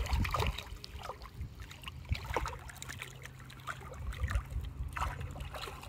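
Boat ambience: a low, steady engine hum with scattered light knocks and clicks on the deck.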